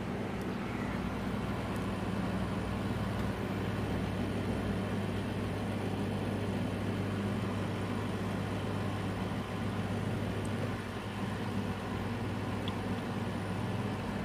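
Desktop PC's cooling fans, the CPU cooler fan among them, running with a steady whirring hum. The CPU fan is spinning normally even though the BIOS reports a CPU fan failure.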